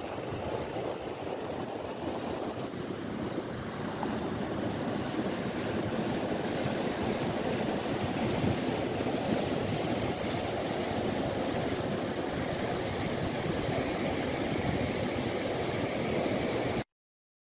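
Ocean surf breaking on a sandy beach: a steady roar of waves, with some wind, that cuts off suddenly near the end.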